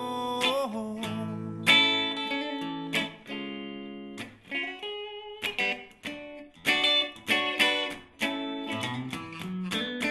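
Instrumental passage of a song on guitar: chords struck and left to ring, then quicker repeated strumming in the second half.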